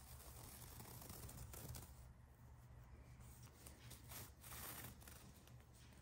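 Near silence, with faint rustling of a crocheted paper-yarn bag being handled and turned in the hands, swelling briefly around the start and again about four seconds in.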